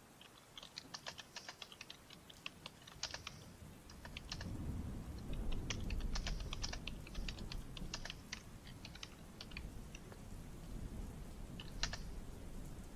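Typing on a computer keyboard in irregular bursts of keystrokes, pausing now and then. About four seconds in, a low rumble swells up beneath the typing and lingers.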